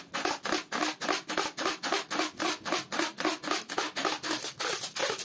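Clear packing tape being pulled off its roll and wound around a plastic-wrapped fabric roll: an even, rapid crackle of about six pulses a second.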